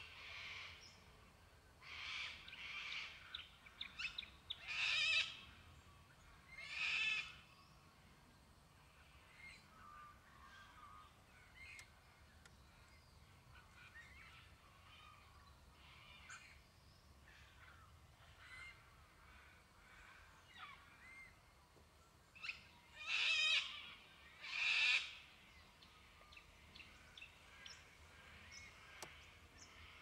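White-winged choughs calling: harsh, rasping calls. The loudest come as two pairs, about 5 and 7 seconds in and again about 23 and 25 seconds in, with softer calls scattered between.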